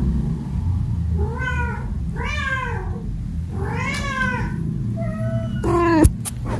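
Cats meowing: three drawn-out meows that rise and then fall in pitch, with a short pause between them, and a shorter meow near the end.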